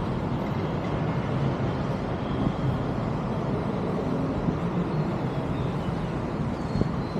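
Steady low rumble of city road traffic, heard outdoors from above the street.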